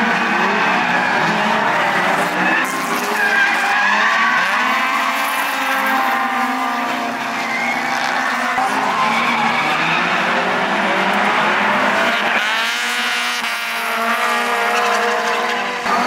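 Drift cars at full noise: more than one engine revving up and falling back at once, their pitches rising and dropping over one another, over continuous tyre squeal from sliding tyres.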